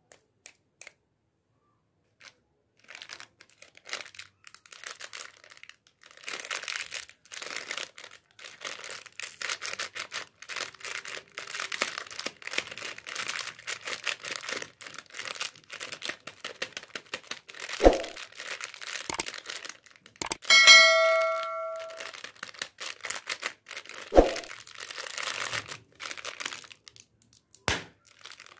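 Plastic lollipop wrappers crinkling and tearing as they are handled and opened, with three sharp clicks along the way. About three-quarters through, a single ringing ding sounds and fades; it is the loudest sound.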